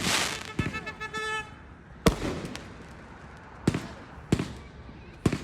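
Consumer fireworks going off: a crackling, hissing burst at the start, then separate sharp bangs about two, three and a half, four and a quarter and five seconds in. A brief steady tone sounds just after one second.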